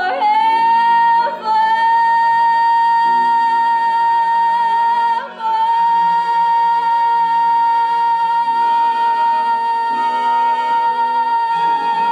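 A female solo singer holding one long, steady high note over instrumental accompaniment, broken only by two short breaks, about a second in and about five seconds in.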